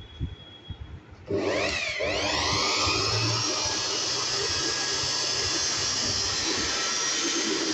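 BuildSkill Pro 850-watt electric hand blower switched on at its lowest speed setting about a second in: the motor and fan spin up with a rising whine, dip briefly, then settle into a steady whine with a rush of air.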